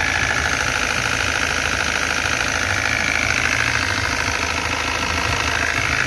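Iveco Daily 35S14 turbodiesel engine running at idle with a steady, fast, rhythmic noise from the lower front of the engine that persists after the hydraulic lifters have filled. The owner suspects a tired timing-chain tensioner or a worn timing-chain kit.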